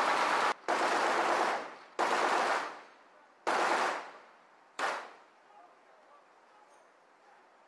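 M240B 7.62 mm machine gun firing five short bursts in quick succession, the last one very short, each trailing off in an echo; after that only a faint steady hiss.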